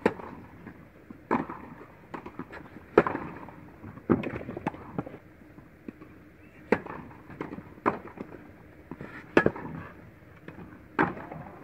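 Tennis balls struck by rackets and bouncing on an indoor hard court: sharp pops every second or two, each with a short echo from the hall.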